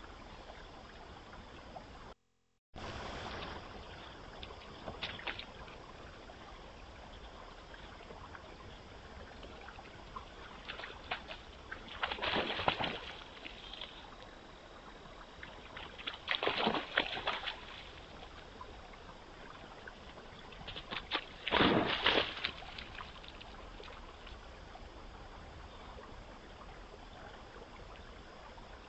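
White-tailed deer wading in the shallows at a pond's edge: three splashing bursts about a second long each, four to five seconds apart, over the steady hiss of a trail camera's microphone, with a brief dropout about two seconds in.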